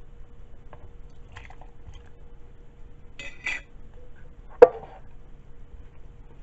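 Canned sliced carrots tipped from a tin into a bowl of thick creamy filling: a short wet, scraping slide about three seconds in, then a single sharp clank against the bowl a second later.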